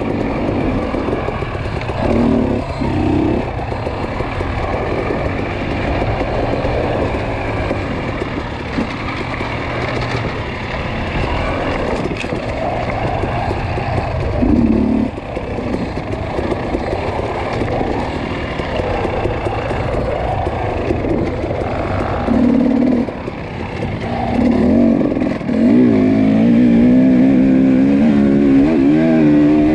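Off-road dirt bike engine under race throttle, revving up and easing off in short surges. It climbs about three-quarters of the way through and holds higher, louder revs to the end.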